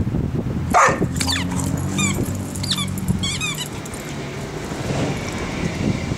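Brittany Spaniel giving a short, loud cry that falls in pitch, about a second in. Birds chirp in quick short notes over a low steady hum.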